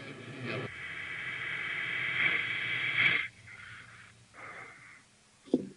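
Audio played backwards through a reverse-audio spirit-box setup: garbled, voice-like sound that swells and then cuts off abruptly about three seconds in, followed by a few short broken fragments.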